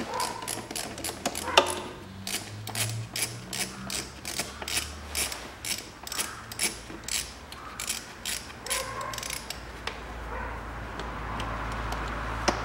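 Ratchet wrench clicking in quick repeated strokes, about three clicks a second, as a fastener on the engine's air-intake duct is loosened. The clicking stops about nine seconds in, leaving a steady low hum.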